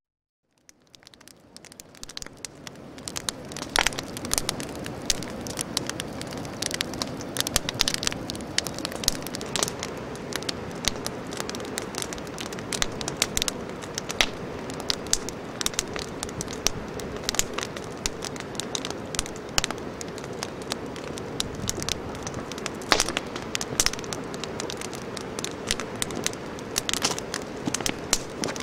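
Steady crackling with frequent sharp pops over a constant hiss, fading in over the first few seconds.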